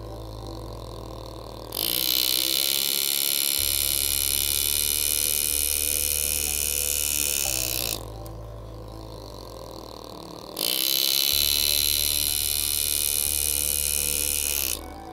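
Power-assisted engraving graver buzzing as it cuts scrollwork into a stainless steel knife handle, in two long runs of several seconds each with a quieter pause between them.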